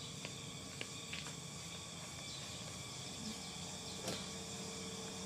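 Quiet outdoor background of steady insect chirring, with a few faint clicks in the first second or so and a soft knock about four seconds in.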